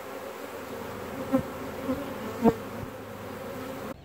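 A honey bee swarm buzzing steadily as it marches into a hive, with three short thumps in the middle, the last the loudest. The buzz breaks off sharply near the end.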